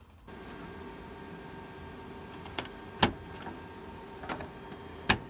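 Sharp clicks and knocks of a server circuit board being handled and fitted by hand, four in all; the loudest comes about three seconds in and another near the end. Under them runs a steady hum with a few constant tones.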